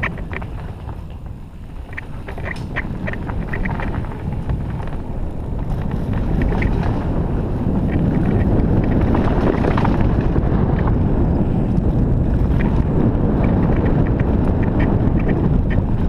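Downhill mountain bike descending a dirt trail: wind rushing over the bike-mounted camera's microphone and tyres rolling over packed dirt and loose stones, with sharp rattles and clicks from the bike. The rush grows louder about six seconds in.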